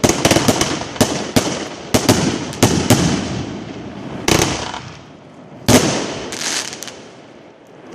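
Fireworks going off: a rapid string of sharp cracks and bangs for the first few seconds, thinning out to two single louder bangs with crackle after them, then dying away.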